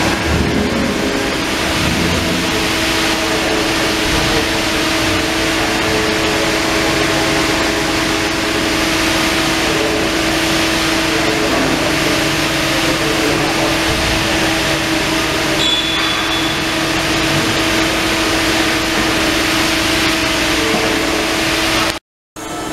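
A machine running steadily: an even mechanical drone and hiss with a constant hum. A short high beep sounds about two-thirds of the way in, and the sound drops out briefly near the end.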